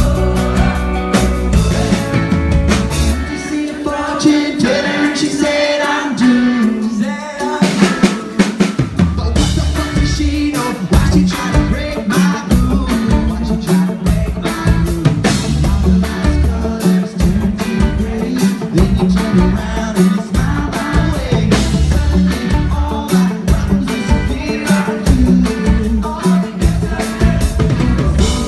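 Pop-punk band playing live through a venue PA, with drum kit, bass guitar and electric guitar in a stretch without lead vocals. The bass and kick drum drop out about four seconds in, and the full band crashes back in about eight seconds in.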